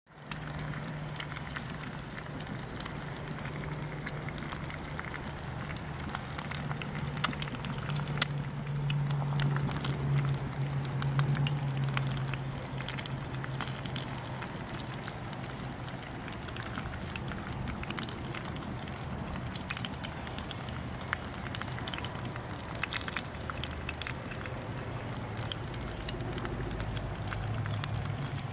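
Eggs and bacon frying in a cast-iron skillet over a wood fire: a steady sizzle of spitting fat with scattered louder pops and crackles, over a low steady hum.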